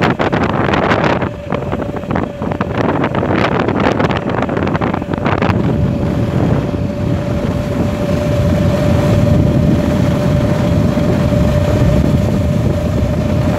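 Wind buffeting the microphone of a phone on a moving motorbike, over the bike's engine and road noise. The gusty crackling settles about five seconds in, leaving a steady rush with a steady whine under it.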